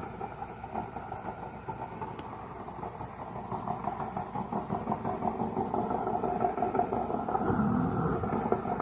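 Rotary dryer-vent cleaning brush spinning inside the vent duct: a motor running with a rapid rattle of the brush against the duct, growing louder toward the end.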